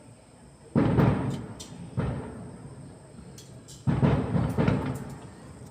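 Thunder booming three times in the sky. Each boom starts suddenly and rumbles away over about a second, and the last one comes in two quick pulses.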